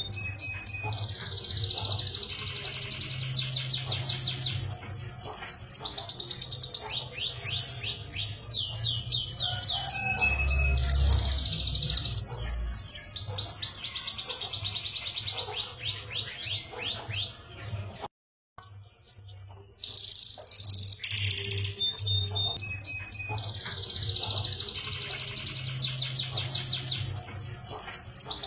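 Domestic canary singing a long song of fast rolling trills and repeated chirps over a low steady hum. The song breaks off for a moment about two-thirds of the way in, then starts again.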